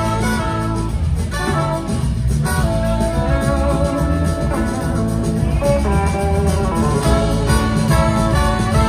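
Live blues-rock band playing an instrumental passage, with a lead guitar carrying the melody over the full band, heard from the audience.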